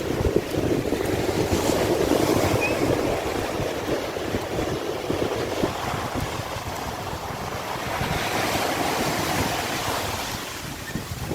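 Sea surf washing in and out, swelling about two seconds in and again later, with wind buffeting the microphone.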